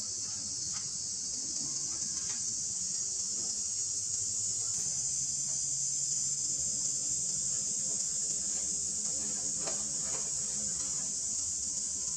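Insect chorus: a steady, high-pitched drone with no break, and a few faint short sounds beneath it.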